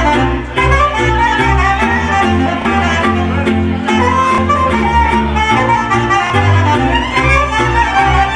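Live wedding band playing a Romanian dance tune, a melody on violin over bass and a steady, driving beat.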